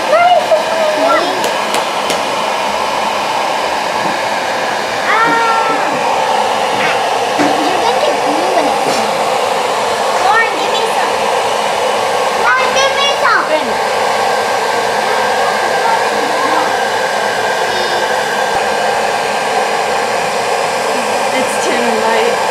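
Hair dryer blowing steadily on thermochromic slime, heating it so its colour fades to white.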